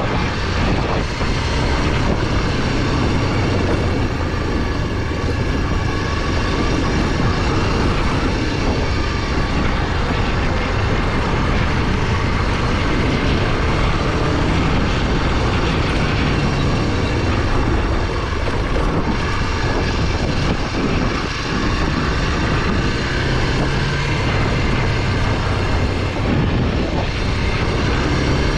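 Honda NX 250's single-cylinder four-stroke engine running steadily as the motorcycle rides off-road, over a constant rush of wind and tyre noise.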